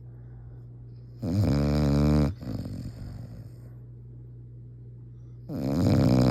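Loud snoring from a sleeper: two drawn-out snores about four seconds apart, the second starting near the end, with faint breathing between them.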